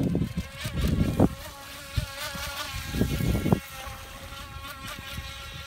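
Small electric motor of a Venom RC power boat whining as the boat runs at speed across the water: a thin, insect-like buzzing whine that wavers slightly in pitch.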